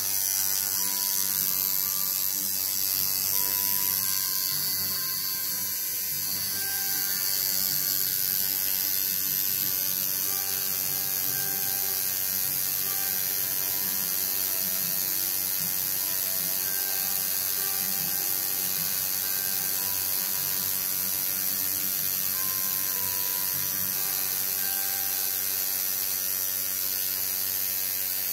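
Home-rebuilt coil tattoo machine with a single needle buzzing steadily while lining lettering into skin; the buzz settles into an evener tone about ten seconds in.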